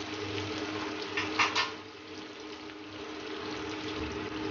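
Chopped onions sizzling in hot oil in a pan as they sauté, a steady hiss with a steady low hum underneath. Two short sharp knocks about a second and a half in.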